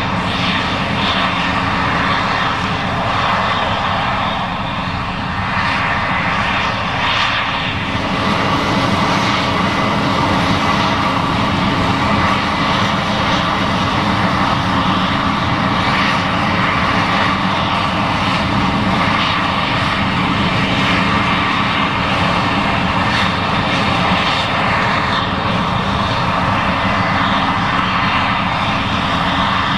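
Case IH 7140 Axial-Flow combine running steadily at work harvesting corn: a loud, even drone of engine and threshing machinery.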